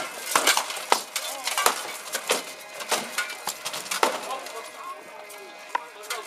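Sword blows striking wooden shields and armour in a foot combat: a quick, irregular run of sharp knocks and clanks, several a second, that thins out after about four seconds.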